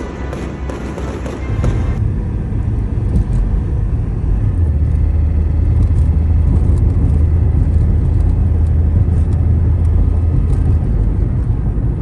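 Fireworks crackling and bursting briefly, then the low, steady rumble of a car driving, engine and road noise heard from inside the cabin.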